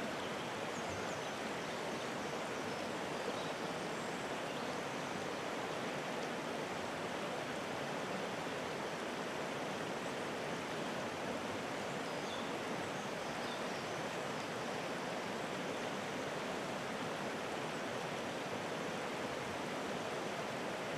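River rapids: fast shallow water running over rocks, an even, unbroken rush of water.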